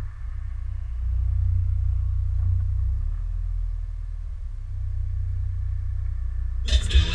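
Low, steady rumble of a stopped vehicle idling, heard from inside the cab. Music cuts in abruptly near the end.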